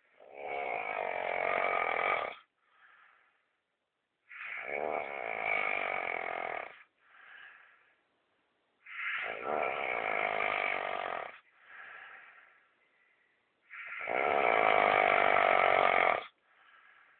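Snoring in sleep: four long snores, each about two seconds, coming roughly every four and a half seconds, each followed by a much softer, shorter breath out.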